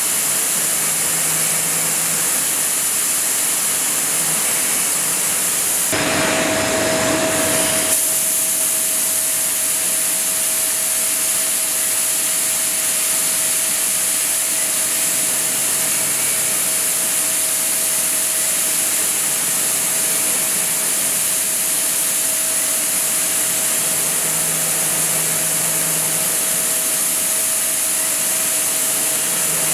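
CNC lathe turning a steel chess pawn with carbide inserts: steady machine hiss, a louder rushing noise for about two seconds around six seconds in, then a steady whine underneath.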